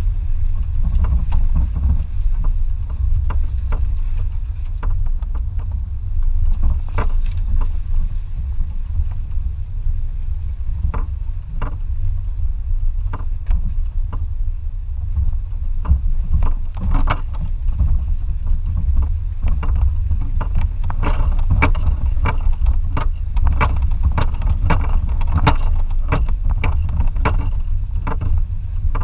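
2004 Toyota Tacoma TRD Off-Road pickup driving: a steady low rumble with scattered knocks and rattles that come thick and fast in the last third.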